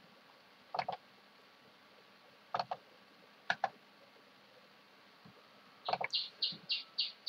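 Computer mouse clicks, each a quick press-and-release pair, coming every second or two, then a quick run of about four lighter clicks near the end.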